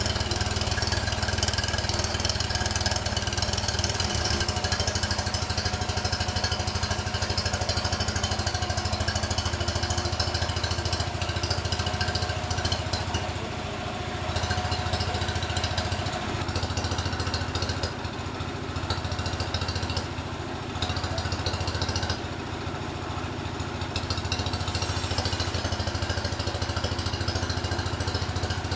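Sawmill machinery running steadily: a continuous engine drone with the harsh noise of a saw working wood above it, the saw noise easing briefly several times in the second half.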